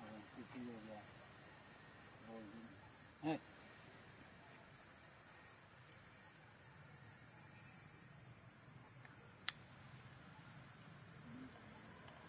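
Steady, shrill, high-pitched drone of an insect chorus. Faint voices come near the start, then a brief sharp sound about three seconds in and a faint click later on.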